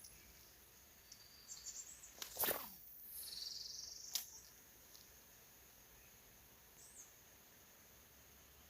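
A cast with a fishing rod: a quick falling swish, then line running off the reel for about a second, ending in a sharp click as the reel is closed. Faint high bird or insect chirps sound in the background.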